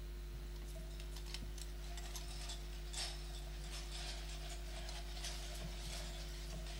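Faint scattered clicks and rustles over a steady electrical hum, in a quiet pause with no speech.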